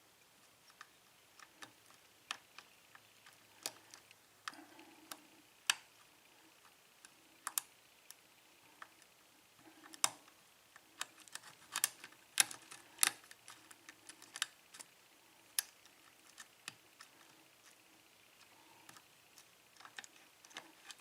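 Irregular small clicks and ticks of a lock pick working the pins of a Burg-Wächter padlock held under a tension wrench, busiest about halfway through. The pick is not setting the pins, and the lock stays shut.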